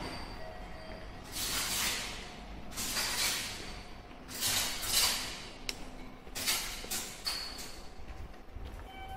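Repeated bursts of hissing noise, each about half a second to a second long and a second or two apart, over a faint steady background hum.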